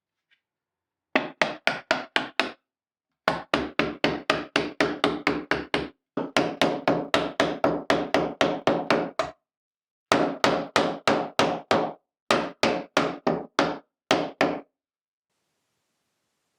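Soft hammer blows on wood, driving dovetail joints together during a glue-up: five runs of rapid, even strikes, about four or five a second, with short pauses between runs.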